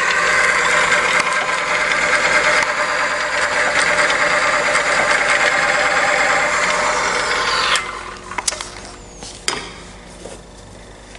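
Lubricant friction test machine running under load: its motor-driven steel wheel spins against a bearing block lubricated with Prolong SPL 100, giving a steady mechanical whir and grind with no squeal, a sign that the lubricant film is holding under the added torque-wrench pressure. The machine cuts off suddenly after about eight seconds, followed by a few sharp clicks.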